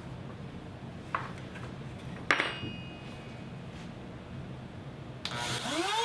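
Compact router being handled: a light click, then a sharp metallic clink while its bit depth is being set. About five seconds in, the router motor switches on and spins up with a rising whine.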